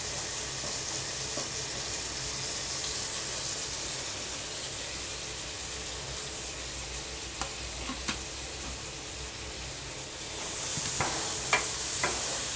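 Freshly added chopped onions sizzling in hot oil in a nonstick kadai. The sizzle grows louder about ten seconds in, when a wooden spatula starts stirring, with a few knocks of the spatula against the pan.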